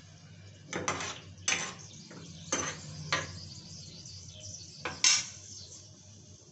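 A spoon stirring chickpea curry in a frying pan, knocking and scraping against the pan several times. The last knock, about five seconds in, is the loudest.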